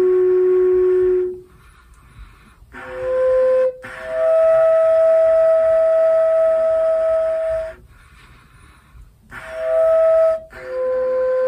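Didgeridoo played flute-style, blown into clear, high, flute-like notes instead of the usual drone. A held note stops about a second in; after a pause come several long sustained notes on a few higher pitches, each ended by a short pause, the longest lasting about four seconds in the middle.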